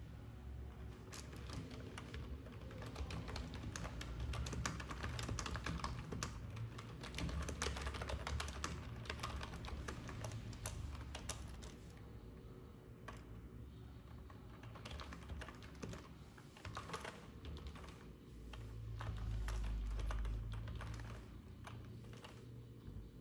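Typing on a computer keyboard: rapid key clicks in irregular runs that thin out in the last few seconds, over a low hum.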